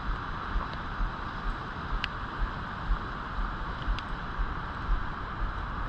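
Steady rush of flowing river water, with wind buffeting the microphone in low rumbling gusts and a couple of light ticks.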